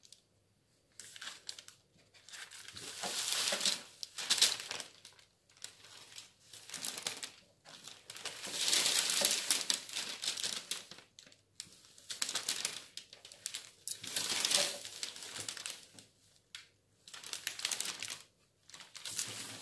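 A large sheet of thin pattern paper rustling and crinkling as it is handled, shifted and smoothed on a table, in irregular bursts of one to three seconds with short quiet gaps between them.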